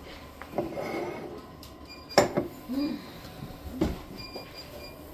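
Kitchenware being handled and set down on a countertop: a sharp knock about two seconds in and a second one nearly two seconds later, as porcelain dishes and a wooden knife block are moved.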